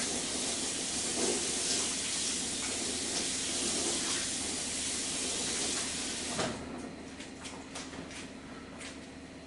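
Range cooker's electric fan oven running while it preheats, a steady hiss with a faint hum. It cuts off with a click about six and a half seconds in, then a few faint ticks follow.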